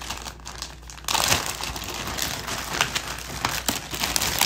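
Packaging crinkling and rustling as it is handled, a dense crackle of small clicks that gets louder about a second in.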